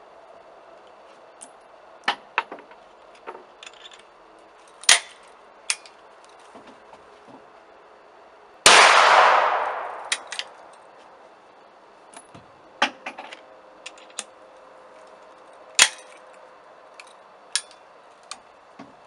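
Break-action 12-gauge single-barrel shotgun with a 9mm adapter insert: sharp metallic clicks and clanks of the action being opened, worked and loaded. A single gunshot comes about nine seconds in and rings out, fading over about a second and a half.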